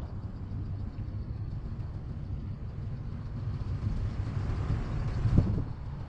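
A motor vehicle passing close by, getting louder over the last couple of seconds and peaking just before the end, over a steady low rumble.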